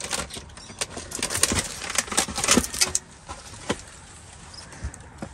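Plastic packaging, cardboard boxes and trash rustling, crinkling and knocking together as items in a dumpster are shifted with a reach-extender grabber. There is a busy run of crinkles and clicks for about the first three seconds, then only a few single clicks.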